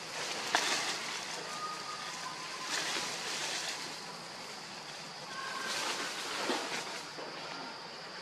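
Forest ambience: leaves and branches rustling in swells that come and go a few times, over a faint steady high hum.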